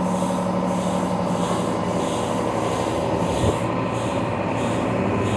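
BharatBenz tipper truck's diesel engine held at raised, steady revs to power the hydraulic hoist as the dump bed tips up, with a scraping, rubbing noise over the steady hum.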